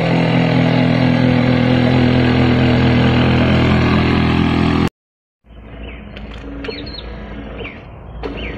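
RC scale excavator's motor running with a loud, steady drone. It cuts off suddenly about five seconds in, and after a brief silence a quieter low rumble follows, with a few short falling chirps near the end.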